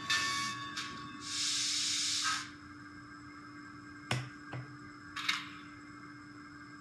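Sound decoder of an N scale Kato GS-4 4-8-4 steam locomotive playing through its tiny speaker. A few chuffs give way to a long steam hiss about a second in, then come two clanks half a second apart and a short hiss, over a steady faint hum.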